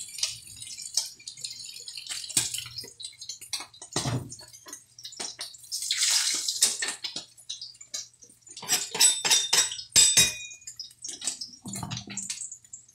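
Kitchen prep at a sink: scattered knocks and clicks of a knife, a plastic cutting board and other utensils, with a short rush of water about six seconds in and a quick run of sharp clinks around nine to ten seconds.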